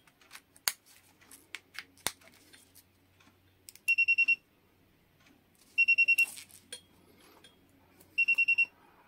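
Hioki DT4261 digital multimeter's buzzer beeping in three quick bursts of about six rapid high-pitched beeps each. In resistance mode the buzzer stays busy making beeps while the meter locks onto a reading.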